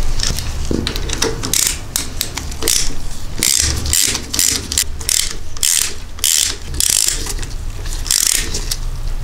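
Socket ratchet clicking in short bursts, stroke after stroke, as the oil drain bolt is run back in after an oil change.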